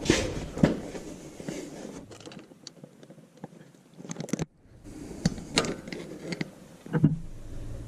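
Irregular small metal clicks and scrapes as the snap ring is worked off the end of the front axle shaft inside the wheel hub of a Ford F350 Super Duty.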